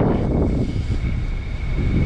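Typhoon wind gusting hard and buffeting the microphone, with a thin steady high whistle underneath.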